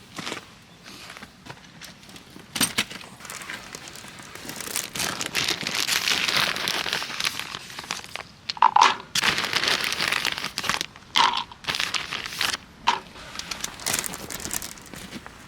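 Crinkling and rustling of something being handled at close range, swelling in the middle, with scattered sharp clicks and knocks.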